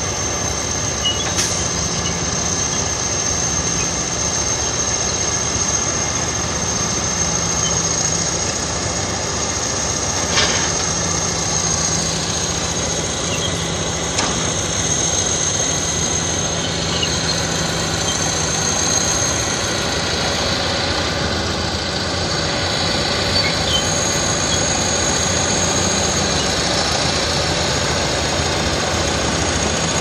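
Heavy diesel earthmoving machinery working: an old crawler bulldozer pushing dirt with excavators running nearby, engines running steadily under load. A thin high whine stays constant over the engines, and a few sharp metal clanks stand out.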